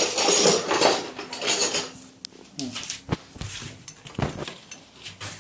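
Metal tools and engine parts clattering and clinking as they are handled, with a dense rattle for the first two seconds and then a few separate sharp metallic knocks.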